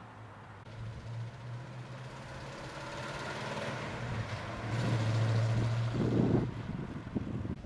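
1973 Plymouth Road Runner's 400 big-block V8 running with a steady low note. It gets louder about five seconds in, then falls back after about six and a half seconds.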